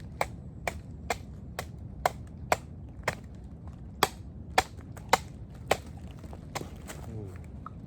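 Chopping with a blade: about a dozen sharp strikes, roughly two a second, with a brief pause about halfway through.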